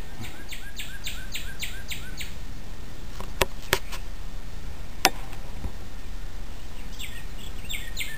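A songbird singing a fast series of repeated downslurred notes, about four or five a second, in two bouts: one at the start and one near the end. In between there are three sharp clicks, over a steady low background hum.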